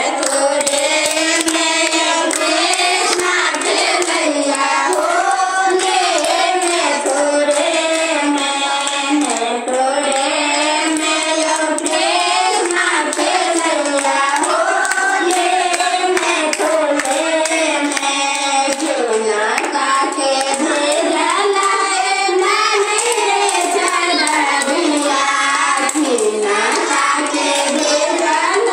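Group of women singing a Hindu devotional song to Radha and Krishna, one voice leading into a microphone, with continuous rhythmic hand clapping.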